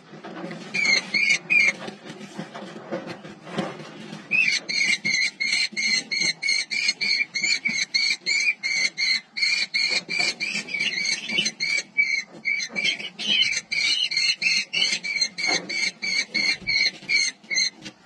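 Kestrels calling at the nest: a rapid, even series of short shrill "kee" notes, about five a second. A brief burst comes near the start, then after a short lull the notes run on almost without break until just before the end.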